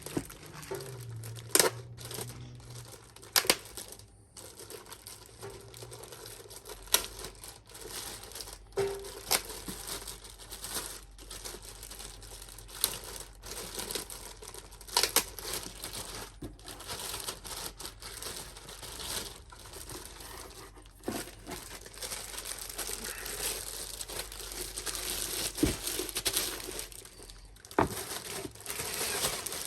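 Packaging wrap being pulled off a car amplifier by hand: continuous crinkling and rustling with frequent sharp, irregular crackles and tearing sounds.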